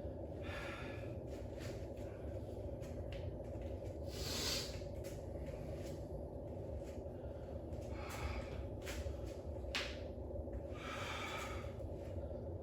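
A man breathing hard while recovering between sets of a strength workout, with several heavy exhales a few seconds apart over a steady low hum.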